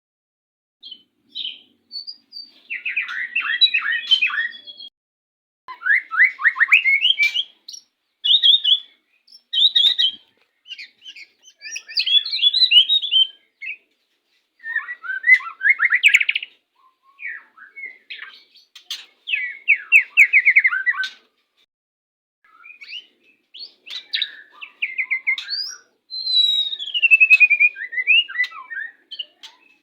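White-rumped shama (murai batu) singing a string of varied, rapid phrases, each a second or two long with short pauses between. This is song during the pairing of a breeding pair.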